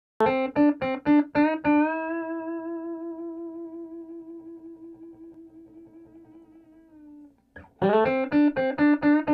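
Theme music on a plucked string instrument. A quick run of picked notes is followed by one note left ringing with a wavering pitch that slowly dies away. Near the end, after a brief gap, another run of picked notes starts.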